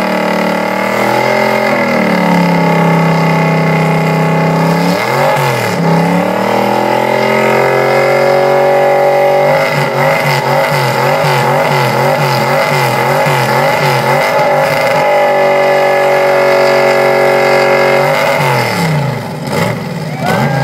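Pickup truck's engine held at high revs through a burnout, its rear tyres spinning on the pavement. The revs dip and climb a couple of times early on, waver up and down in the middle, then fall away near the end as the driver lets off.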